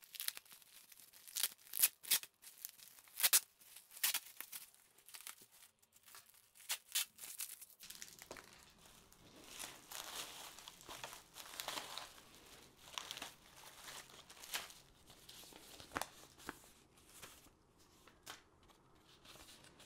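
Plastic wrap and bubble wrap crinkling and tearing as they are pulled open by hand. For the first eight seconds or so there are sharp crackles, then a denser, softer rustling.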